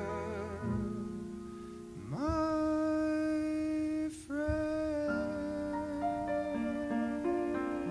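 Close of a slow ballad: a male voice's held note with vibrato fades out, then a wordless held note swells up about two seconds in and a shorter one follows. From about five seconds in, piano plays soft closing chords.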